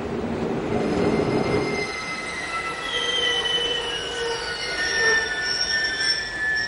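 Train wheels squealing against the rails: several high, drawn-out tones that waver slightly in pitch, over a low running rumble that fades after about two seconds.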